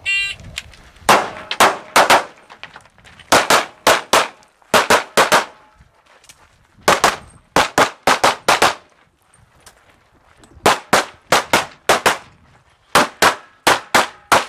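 A shot-timer start beep, then a handgun fires a string of about two dozen shots in quick bursts of two to six, with short pauses between the bursts.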